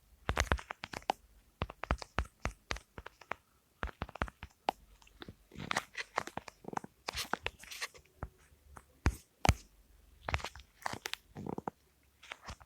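Irregular close-up crunching and crackling, many short sharp clicks in uneven clusters.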